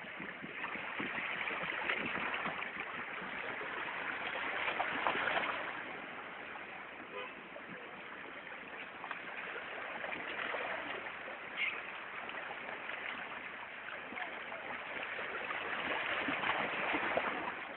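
Sea surf: waves washing in as a rushing noise that swells about five seconds in, eases off, and swells again near the end.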